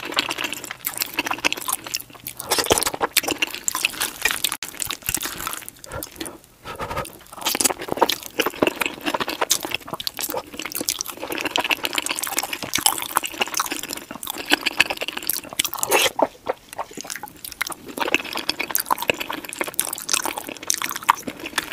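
Close-miked ASMR eating of chili cheese fries: wet, sticky chewing and mouth smacks with soft crunches, sped up to double speed.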